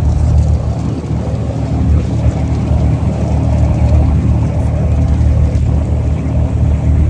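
A boat's engine droning steadily at a low pitch.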